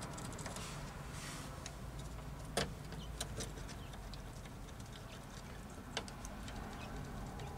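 A few light clicks and taps as hands work at the lower mounting end of a chrome jail bar against the window frame, the sharpest about two and a half seconds in and again about six seconds in, over a low steady hum.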